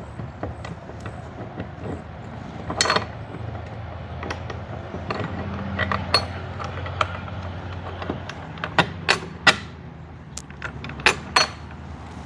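Irregular metal clicks and knocks of quick-release awning bracket parts being handled and fitted, over a steady low hum.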